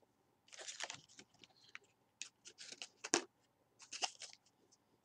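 Faint, short scratchy scraping strokes from a makeup brush and eyeshadow being handled, with one sharp click a little after three seconds in.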